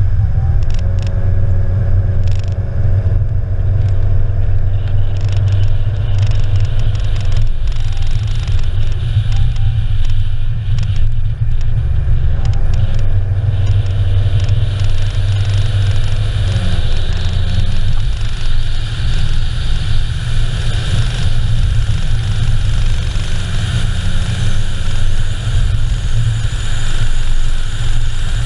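Car driving on an open asphalt road: a steady low rumble of road and wind noise over the engine's hum. The engine's pitch shifts about halfway through and again a few seconds later, and there are scattered light ticks in the first half.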